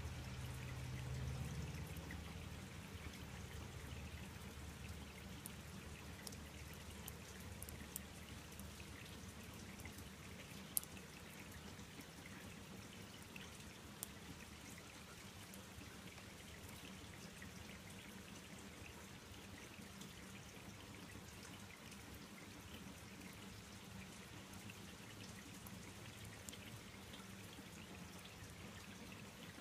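Faint steady outdoor background noise with a few sharp clicks scattered through it.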